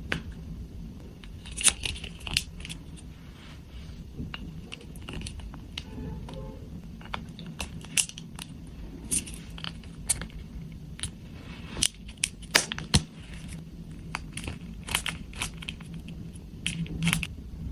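Hands handling plastic toy parts and packaging: irregular clicks, snaps and crinkling, with now and then a short tearing or crushing sound.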